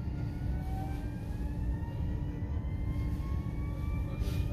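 Electric train's traction motors whining as it pulls away from a station, several tones rising steadily in pitch over a low rolling rumble, heard from inside the carriage.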